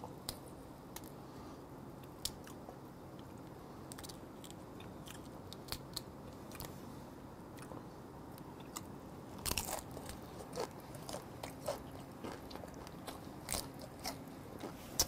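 Small crackles and clicks of a steamed whiteleg shrimp's shell being peeled off by hand, coming thicker and louder from about ten seconds in, with chewing near the end.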